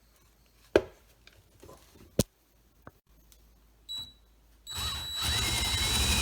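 A few handling clicks and knocks from the drill and bit. Then an electric drill whines briefly and starts up about three quarters of the way through, its motor pitch rising and then running steadily.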